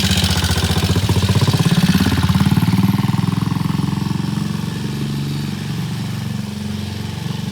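Vintage British motorcycle engine running. The revs rise about a second in, then settle, and the sound gets steadily quieter from about three seconds in.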